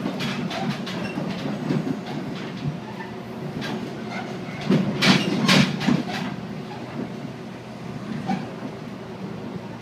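Inside a Tobu 8000 series electric train car running at low speed: a steady low hum of the traction motors and gears under running noise, with rail-joint clatter and a loud cluster of knocks about five seconds in. This car's motors were known for an extra low-pitched tone under acceleration.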